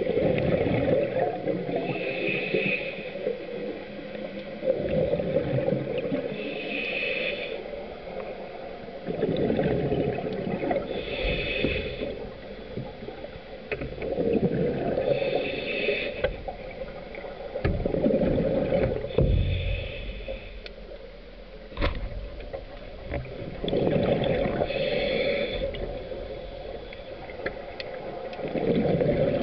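Scuba diver breathing through a regulator underwater: a short hiss on each inhale, then a long rumble of exhaled bubbles, repeating about every four to five seconds. A single sharp click sounds about two-thirds of the way through.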